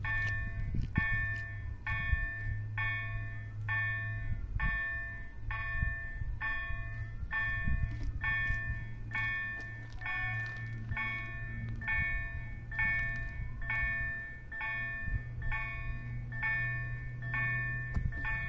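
Railway level-crossing warning bell ringing steadily, about two strokes a second, over a low steady hum.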